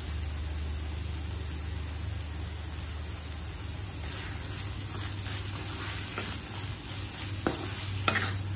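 Grated raw mango tempering sizzling in an iron kadai. From about four seconds in, a wooden spatula stirs it, scraping the pan, with two sharp knocks near the end.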